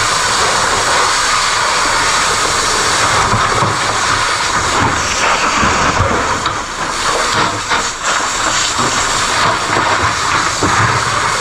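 Loud, steady hissing rush of noise, with a few faint knocks underneath.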